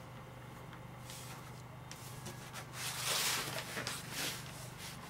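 Soft rustling and scraping from a paintbrush and hand working over a painted board, with the loudest scrape about three seconds in, over a steady low electrical hum.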